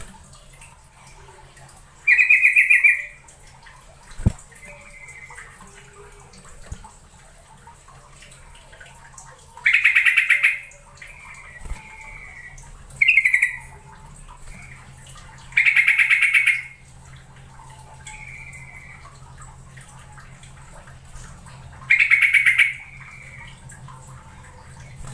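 Yellow-vented bulbul calling: five loud, rapid chattering calls about a second each, spaced several seconds apart, with softer short notes in between.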